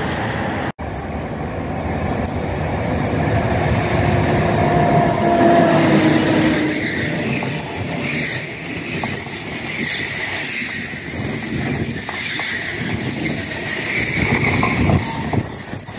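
Electric passenger train passing close by, its wheels rumbling and clicking over the rails. The train is loudest about five or six seconds in, with a brief wheel squeal there, and it keeps rumbling as the coaches go past.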